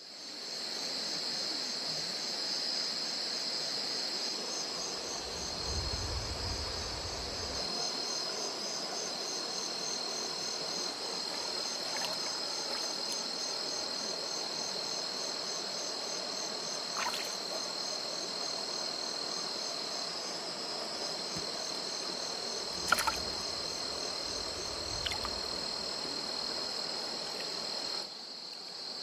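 Crickets and other insects trilling in a steady high-pitched chorus with a fast pulse, broken by a few sharp clicks, the loudest about two-thirds of the way through.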